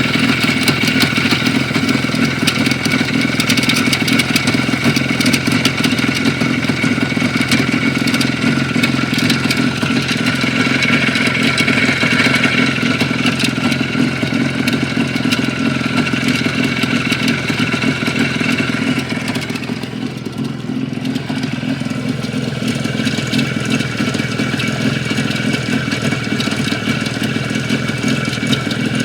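IZh Jupiter-5 motorcycle's air-cooled two-stroke twin-cylinder engine running with a clattering knock, the problem the owner is showing. Its revs drop for a couple of seconds a little past the middle and then pick up again.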